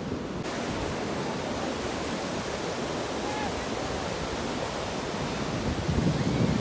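Sea surf breaking and washing up the beach in a steady, loud rush of noise, swelling louder near the end.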